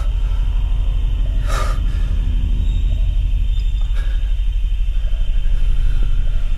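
Loud, steady low rumbling drone of horror-film sound design, with a short whoosh about a second and a half in.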